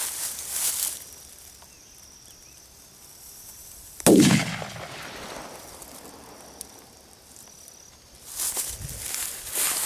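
A small firecracker (bomba) goes off once about four seconds in with a single sharp bang, its tail dying away over about a second. Footsteps rustle through grass in the first second and again near the end.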